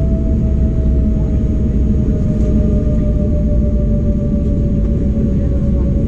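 Cabin noise inside an Embraer 195 taxiing: a steady low rumble with the whine of its GE CF34-10E turbofans, the whine sinking slightly in pitch.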